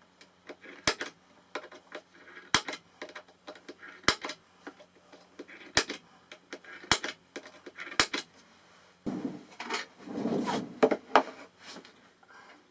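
Small metal hinge hardware clinking as it is handled and fitted: a series of sharp clicks about a second apart with lighter ticks between, then a longer rattling clatter near the end.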